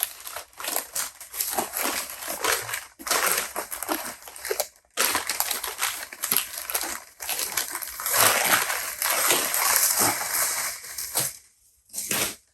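Packing material crinkling and crackling as a camera is unwrapped by hand, in irregular stretches with a few short pauses.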